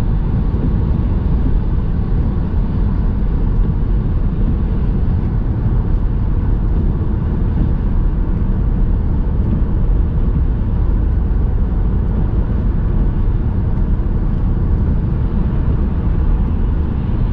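Steady road and engine noise inside a car's cabin at motorway speed: an even low rumble of tyres and wind.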